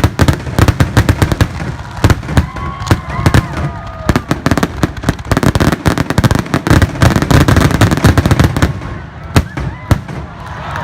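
Fireworks going off in a rapid, dense barrage of bangs and crackles, several a second, with no let-up, as at a show's finale.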